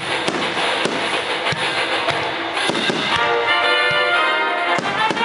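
Fireworks shells bursting and crackling, with music playing; sustained musical chords come through clearly about three seconds in while the bangs and crackle continue.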